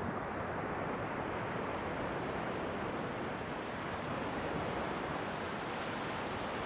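Ocean waves washing on the shore, a steady rush of surf without distinct breaks.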